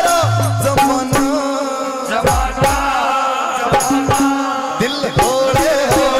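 Live Haryanvi devotional bhajan: a man's singing voice over a keyboard and hand percussion, played loud through a PA system.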